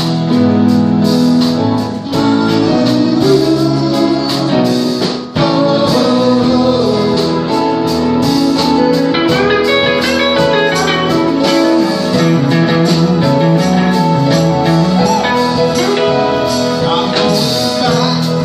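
Small rock band playing live: drums, electric and acoustic guitars and keyboard, with the guitar prominent.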